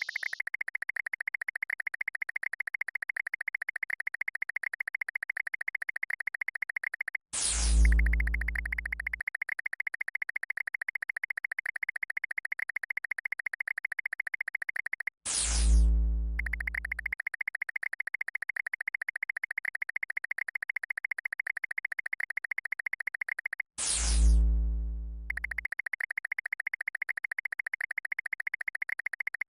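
Synthesized game sound effects: a fast-pulsing electronic buzz, interrupted three times, about eight seconds apart, by a falling zap with a deep boom.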